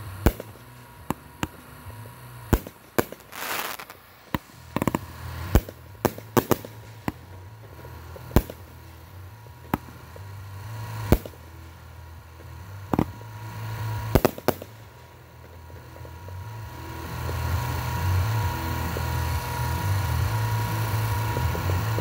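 Consumer fireworks firing in a finale: an irregular run of sharp bangs and shots for most of the stretch, then a steadier, louder noise that builds near the end.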